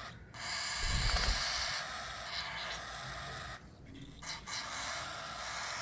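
Cockatiel chicks giving raspy, hissing begging calls while being hand-fed, in two long stretches with a short break about three and a half seconds in. A low bump sounds about a second in.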